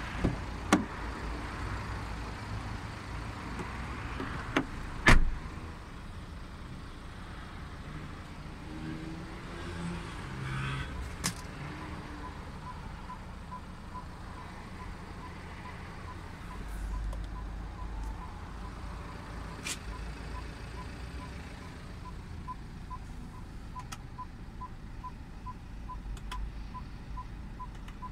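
A BMW 1 Series car door clicks open, then shuts with a loud thump about five seconds in. From about twelve seconds in, a short in-car warning chime beeps evenly, two or three times a second, over a low hum.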